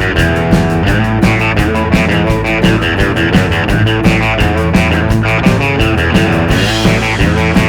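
Background rock music with guitar, bass and drum kit, at a steady beat.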